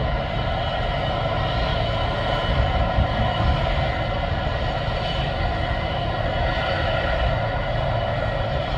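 Air ambulance helicopter running on the ground with its main rotor turning: a steady turbine whine over a low rumble, holding an even pitch throughout.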